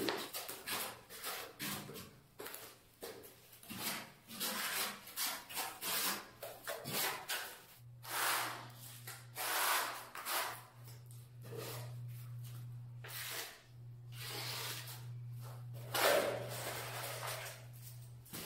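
Trowel scraping and combing tile adhesive across a concrete floor in repeated rasping strokes, each about a second long. A steady low hum comes in about eight seconds in.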